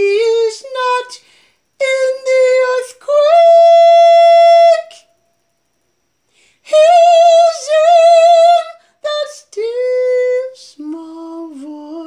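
A woman singing unaccompanied in slow phrases and long held notes with vibrato, with a pause of about two seconds partway through.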